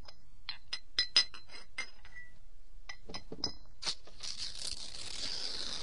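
Glass clinking: a dozen or so light, irregular clinks that ring briefly. In the last two seconds they give way to a steady hiss.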